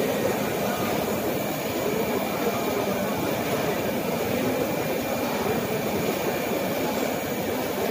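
Steady din of packaging machines running on an exhibition floor, mixed with the hall's general background noise, with a faint high steady whine.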